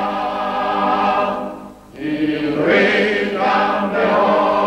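A choir singing slow, long held notes, with a brief break between phrases just under two seconds in.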